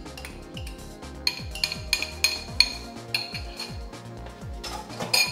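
A spoon clinking and scraping against a glass jar while soaked quinoa is scooped out, with a louder clatter near the end. Background music with a steady beat plays under it.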